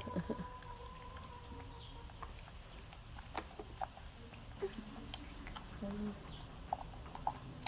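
Quiet feeding sounds of a pet monkey being hand-fed: scattered soft clicks and taps. A faint steady tone fades out in the first two seconds, and a brief low tone comes about six seconds in.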